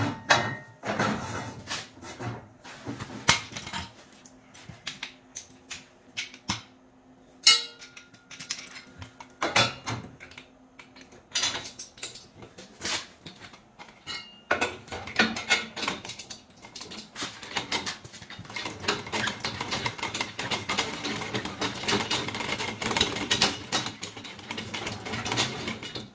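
Steel crane-mount parts clanking and knocking as they are handled and set down on a concrete floor: scattered sharp metal clanks, then a denser run of rapid clicking and rattling over the last ten seconds or so.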